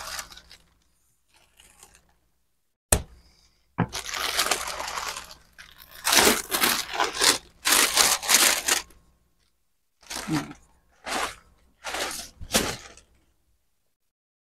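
Silver foil-like plastic wrapping crinkling and rustling in repeated bursts as a tied bundle of folded fabric is handled and pulled out of it, with one sharp click about three seconds in.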